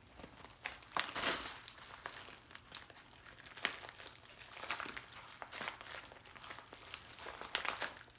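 A thin plastic bag crinkling in irregular bursts as it is twisted and tugged out through the narrow opening of a yarn-wrapped netted basket. The loudest crackles come about a second in and in the middle.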